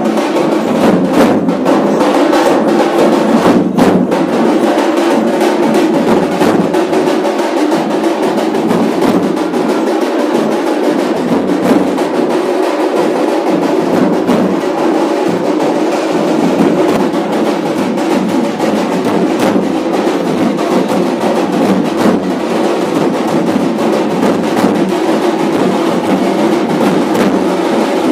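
Dhol drums beating a dense, unbroken rhythm: Konkan rombat festival drumming.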